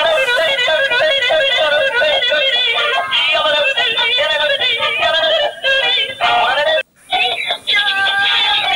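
Dancing cactus plush toy playing a song through its small built-in speaker: thin, tinny, synthetic-sounding singing with music, stopping briefly about seven seconds in.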